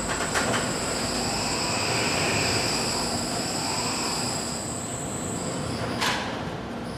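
Overhead bridge crane running as its C-hook is moved into the eye of a steel coil: a steady high machine whine over industrial hum, with a couple of metallic clanks right at the start and a sharp clank about six seconds in.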